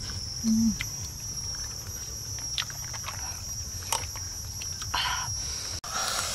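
A steady high-pitched insect drone, with a short low hum about half a second in and scattered clicks and rustles.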